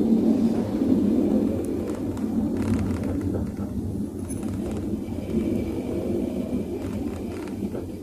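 Cabin rumble of a Toyota Vios driving on smooth asphalt, with a faint run of tok-tok knocks about two and a half seconds in and again near the end. The knocking comes when braking; the owner traces it to the rear drum brakes, where the brake shoes catch on the drum's sidewall.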